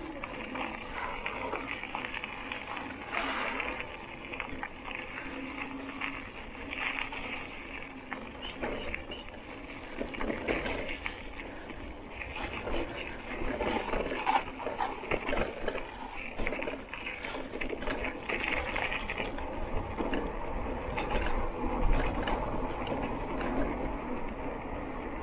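Polygon Xtrada 5 mountain bike being ridden over rough dirt and concrete: steady tyre rumble with frequent short knocks and rattles from the bike jolting over bumps.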